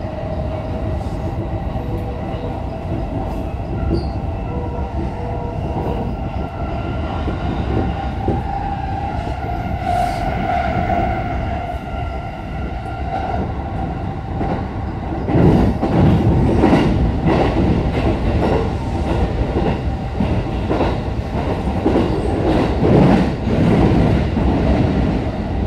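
Keihin-Tohoku Line electric commuter train running between stations, heard from inside the carriage. A whine from the motors comes first; from about halfway, louder repeated clatter of the wheels over the rail joints takes over.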